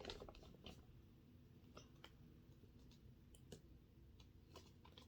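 Faint, irregular clicks of plastic magnet toy pieces being handled and snapping together.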